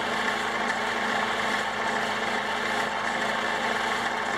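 Homemade bandsaw, built from a RipSaw portable bandsaw mill, running steadily on its electric drive fed from an underpowered cordless-tool battery. Its gear drive runs a little noisy as the blade turns on its pulleys.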